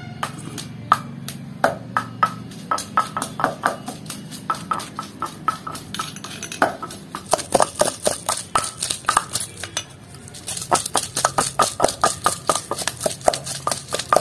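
Wooden pestle pounding in a granite stone mortar, crushing green chillies into a coarse wet chutney paste: rapid, repeated thuds, several a second, easing briefly about ten seconds in.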